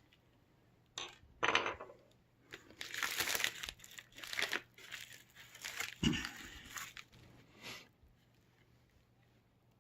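Irregular crinkling and rustling with light plastic clicks as a laptop's LCD panel is handled in its opened lid, with a dull knock about six seconds in.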